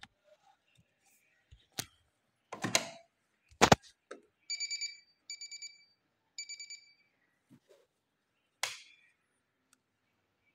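Janome 8200 computerized sewing machine sounding three short runs of rapid electronic beeps, after a few sharp clicks and knocks from handling the machine, the loudest knock just before the beeps.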